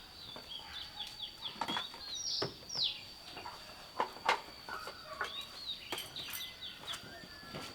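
Birds chirping: many short, quick chirps sliding downward in pitch, over a steady thin high whine, with scattered light taps and clicks.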